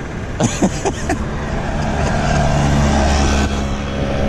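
A small three-wheeler tuk-tuk engine running as it passes on the road, swelling over steady traffic noise, with a few sharp knocks about half a second in.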